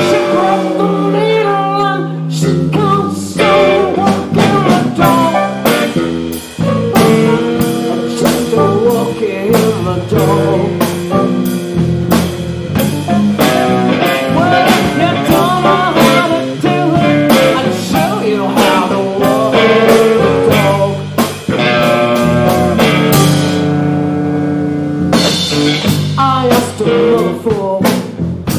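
Live blues band playing: electric guitars and an electric keyboard over a drum kit keeping a steady beat. The cymbals drop out briefly about three-quarters of the way through, then come back in.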